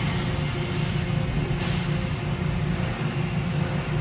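Mazak Integrex 300 IV S CNC lathe running, its spindle and 10-inch three-jaw chuck turning a metal disc with a steady machine hum. A brief faint hiss comes about one and a half seconds in.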